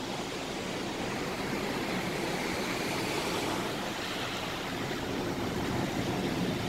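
Sea surf breaking and washing up on a sandy beach, a steady, even rush of waves.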